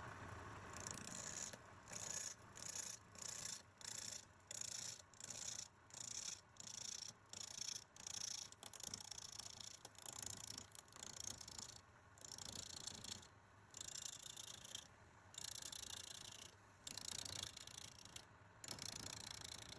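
Rhythmic scraping strokes of an abrasive worked back and forth by hand: short and quick, about one and a half a second, at first, then longer, slower strokes from about twelve seconds in.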